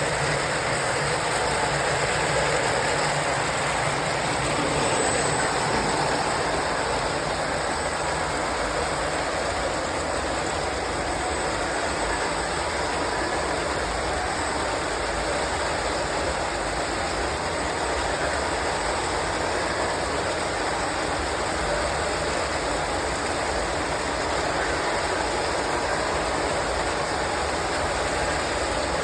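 3D-printed model train running steadily along its track, a continuous even running noise with no pauses.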